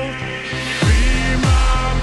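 Electronic music: a rising hiss builds, then a beat drops in about a second in with heavy, deep bass hits that slide down in pitch, roughly two a second.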